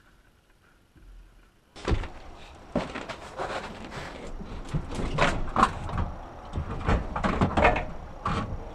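Bicycle being pulled out of a crowded wooden shed: after a couple of seconds of near quiet, a steady run of knocks, bangs and metal rattles as the bike's frame and wheels bump against the wooden shed and the gear around it.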